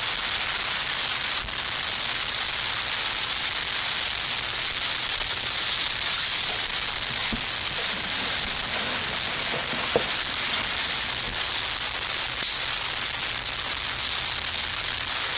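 Small twig wood fire burning in a camp stove: a steady hiss with a few faint crackles and pops.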